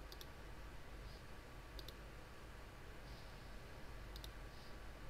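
Three faint computer mouse clicks, each a quick double tick, spread a second or two apart over quiet room tone.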